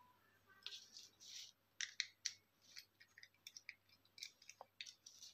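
Faint, quick scratching clicks and scrapes of a small hand tool and copper wire being worked into a two-way switch's screw terminal.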